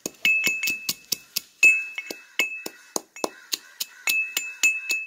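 Iron pestle pounding roasted star anise and cloves in an iron mortar: rapid strikes, about four to five a second, several of them ringing with a short metallic note.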